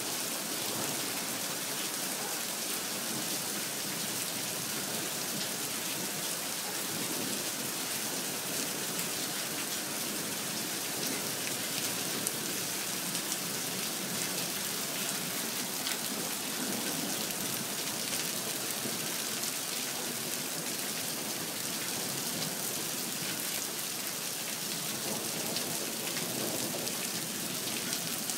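Steady rainfall, an even hiss of drops pattering on surfaces, unbroken throughout.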